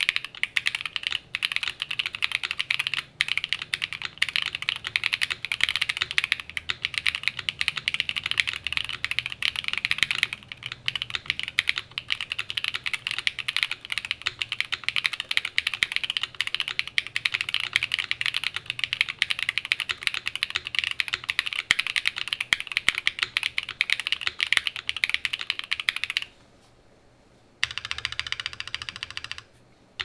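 Rapid, continuous typing on a Sunset80 mechanical keyboard with a polycarbonate plate, full foam dampening, stock unlubed Rama Duck switches and CRP C64 keycaps: a dense run of keystroke clacks. Near the end the typing stops for about a second, resumes briefly, then stops again.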